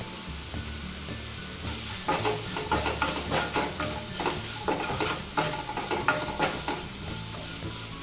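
Chopped vegetables sizzling in oil in a non-stick pan while a spatula stirs and scrapes them, in a run of quick strokes from about two seconds in until near the end.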